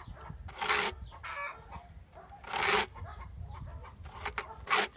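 Round chainsaw file in a PFERD CS-X file guide rasping across the cutters of a chainsaw chain, three push strokes about two seconds apart. Chickens cluck faintly between the strokes.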